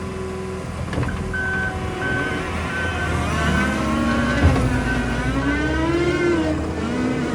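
New Holland C362 skid steer's diesel engine working, its pitch rising and falling as it is throttled under load. Over it a reversing alarm beeps steadily, about once every half-second.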